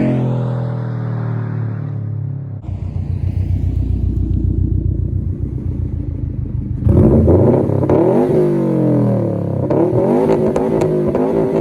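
Subaru WRX STI's turbocharged flat-four engine through a straight-through ETS Extreme catback exhaust with no resonator or mufflers. The car first fades away after a pass, then runs low and steady, and about seven seconds in revs up and down repeatedly through gear changes, with a few sharp crackles near the end.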